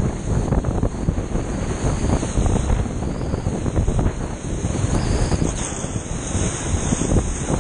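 Rushing whitewater around a kayak in an artificial slalom channel, with heavy wind buffeting on the boat-mounted microphone. Water splashes over the camera about five to six seconds in.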